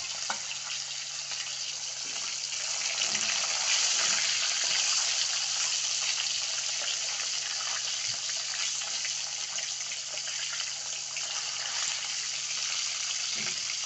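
Fish pieces sizzling steadily as they shallow-fry in hot oil in a metal kadai.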